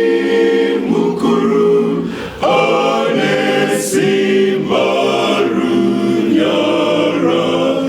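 Mixed church choir singing a hymn a cappella in Shona, in several-part harmony with held chords that change about once a second.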